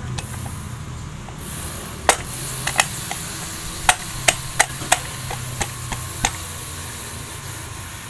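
Sharp, irregular metal knocks and clicks, about eight over a few seconds, as parts of a Yamaha V80 two-stroke engine's aluminium crankcase are handled and fitted during assembly, over a steady low hum.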